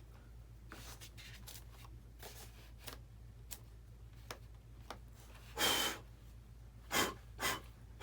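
A hand tool scraping and cutting a channel into an RC model airplane's fuselage, with scattered small clicks and three louder scrapes in the second half.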